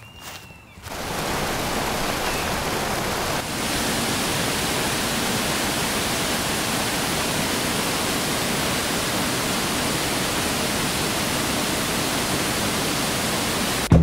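Steady, even rushing hiss that starts about a second in and steps up slightly a few seconds later.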